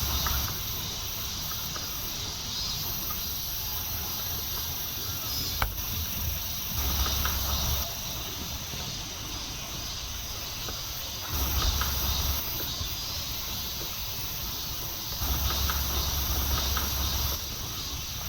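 Steady high-pitched chirring of insects, with a few short bouts of low rumbling and a single sharp click about five and a half seconds in.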